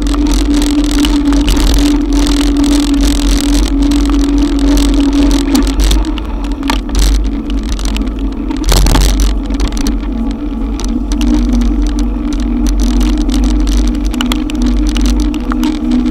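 Riding a Haibike electric bike in heavy rain: a steady hum from the e-bike's drive motor that drops a little in pitch about ten seconds in, over heavy wind rumble and rain and road noise. A short loud burst of noise about nine seconds in.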